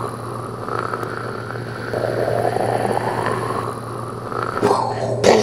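Cartoon sound effects: a rising whoosh that repeats several times, then a couple of sharp knocks and a loud crash near the end as the paper Bean is cracked open.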